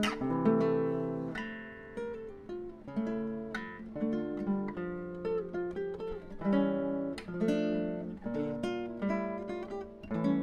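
Background music on acoustic guitar: notes picked and strummed one after another, each ringing out and fading.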